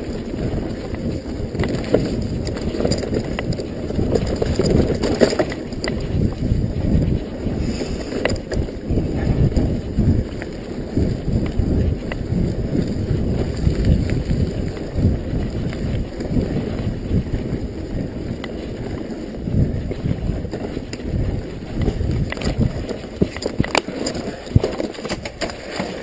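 Wind buffeting a head-worn camera's microphone while riding a mountain bike over a dirt trail: an uneven, low rumble, with sharp clicks and rattles from the bike now and then.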